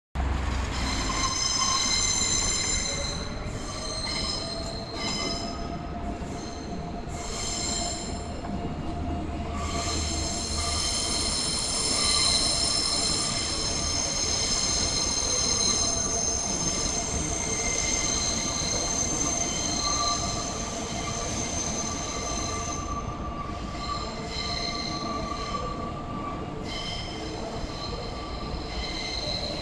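Electric suburban trains moving slowly through curved track, with several high-pitched steady wheel squeals that fade in and out, over a low rolling rumble in the first ten seconds or so.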